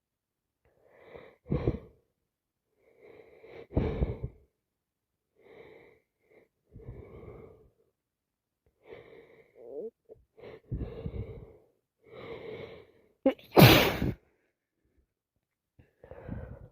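A woman with sinusitis sniffing and wheezing through a congested nose in a run of short bursts, then one loud sneeze near the end.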